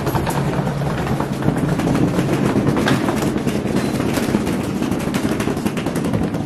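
Rapid, irregular rattling clatter of a hard-shell suitcase's wheels rolling over paving stones, over the steady hum of a tram waiting at the stop.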